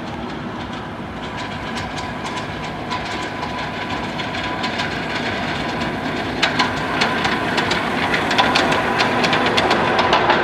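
Miniature ride-on railway train rolling past, its wheels clicking sharply over the rail joints, the clicks coming thicker and louder over the last few seconds as it draws near.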